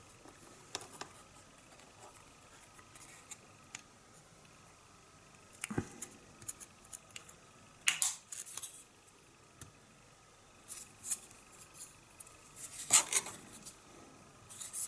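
Plastic model kit parts being handled and fitted together: a bulkhead pushed into a fuselage half, giving scattered light clicks and taps, with louder clusters of clicks a little past halfway and near the end.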